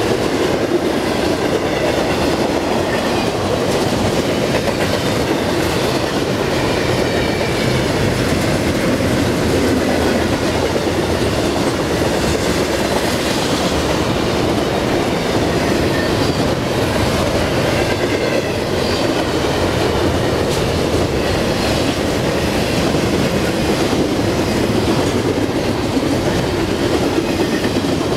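Double-stack intermodal container train passing close by at speed: a steady, loud rumble of steel wheels on the rail from the passing well cars.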